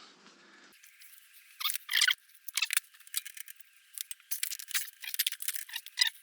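Irregular clicks, rattles and scrapes of hand tools and small metal parts being handled, starting about a second and a half in and coming thicker toward the end.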